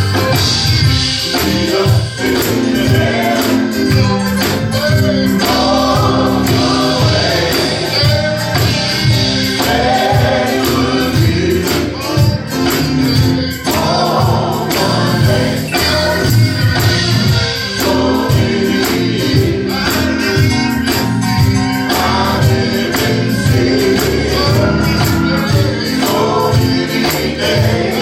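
Gospel song: a choir singing over a band, with a tambourine beating steadily.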